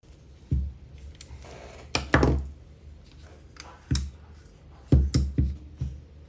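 A series of separate knocks and clunks, about eight, some in quick pairs, from small metal carburetor parts and hand tools being handled and set down on a workbench while a bolt is refitted.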